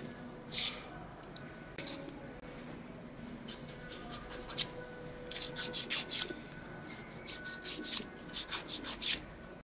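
Nail file scraping across fingernails: a few single strokes, then from about three seconds in quick runs of short back-and-forth strokes, several a second.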